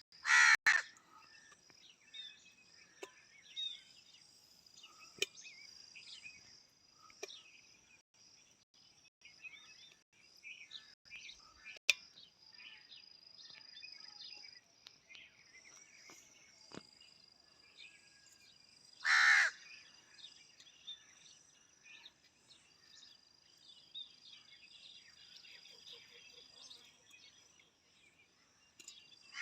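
A crow cawing, two loud harsh caws, one right at the start and another about two-thirds of the way through, over a steady high-pitched insect drone and scattered small bird chirps.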